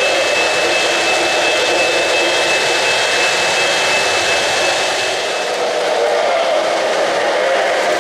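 Lionel O-gauge model train running on three-rail track: a steady whirring rumble of wheels and motor. A thin steady whine runs through the first half and fades out about halfway through.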